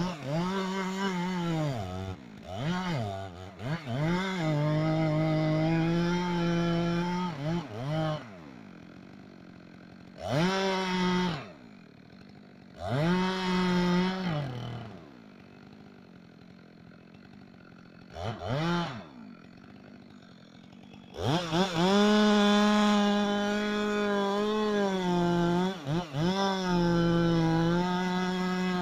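Chainsaw revved in several short bursts with a quiet low idle between them, then held at high revs for the last several seconds, its pitch dipping and recovering as it cuts under load.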